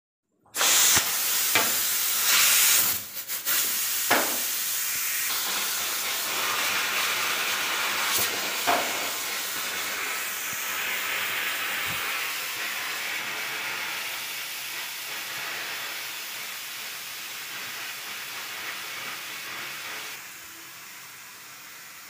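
Stovetop pressure cooker whistling: steam jets out under its weight valve in a loud hiss that starts suddenly, with a few sharp knocks in the first few seconds. The hiss slowly weakens and drops off sharply near the end.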